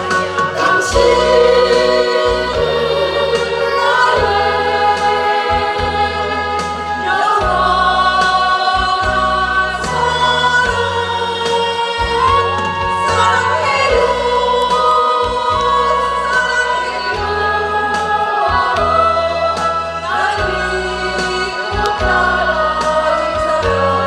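Five women singing a Korean ballad together in sustained, held phrases, over a recorded backing track with a steady bass line.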